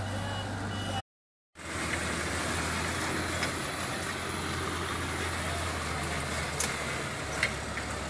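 Diesel engine of an asphalt paver running steadily, a low drone with mechanical noise, with a few sharp metallic clicks near the end. In the first second a reversing beeper sounds in short, evenly spaced beeps; the sound cuts out completely for half a second about a second in.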